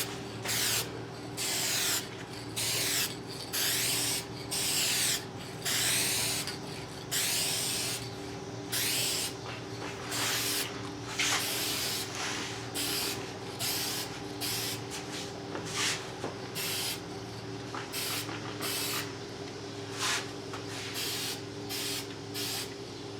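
Aerosol can of trim and bumper paint spraying in short hissing bursts, about one a second, laying a light coat on plastic trim. The bursts grow shorter and fainter in the second half.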